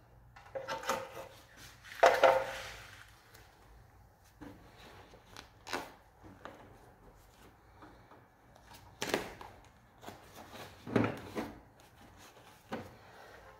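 Tape being pulled from the roll and wrapped around the split air conditioner's copper refrigerant pipe joint and cable bundle: a series of short rustles and knocks, the loudest about two seconds in.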